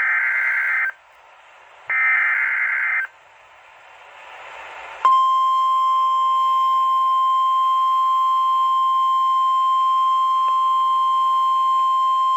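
NOAA Weather Radio alert received on a weather radio: two bursts of the buzzing SAME digital header, each about a second long, then a rising hiss, then the steady single-pitch warning alarm tone starting about five seconds in and holding. The alarm tone signals that a warning message follows.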